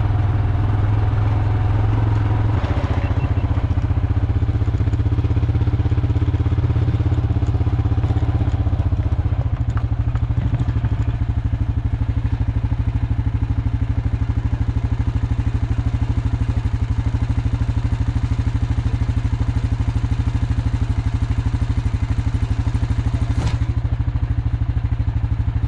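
ATV (four-wheeler) engine running steadily, with its low note shifting about two and a half seconds in.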